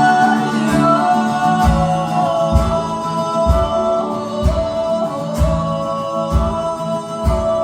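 Live song performance in a passage between sung lines: sustained melody notes over a low, steady drum beat, roughly one beat a second.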